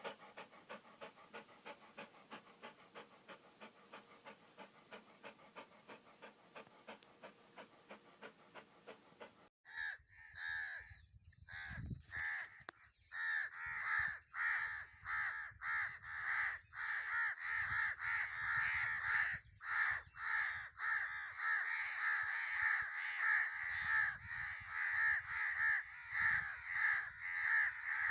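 Faint regular pulses, about two a second, for the first ten seconds, then a long run of loud, repeated bird calls, many overlapping, that grows louder toward the end.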